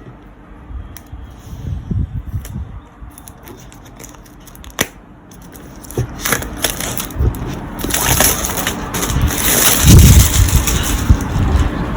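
Plastic wrap seal being torn off a product box and crumpled: a few scattered crackles at first, building to dense, loud crinkling and rustling in the second half.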